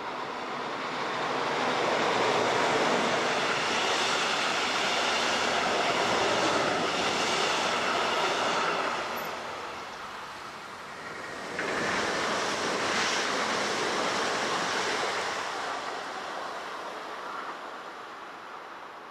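Two electric passenger trains passing close by. The first, a red electric locomotive hauling passenger coaches, runs past with a steady rushing rumble and a faint ringing of wheels on rail, then fades by about ten seconds in. A second train, a red electric multiple unit, comes in suddenly loud shortly after the middle and passes, fading away toward the end.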